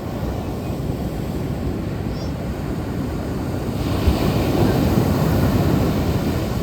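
Ocean surf washing on a beach as a steady low rushing noise, with a wave breaking and washing louder about four seconds in.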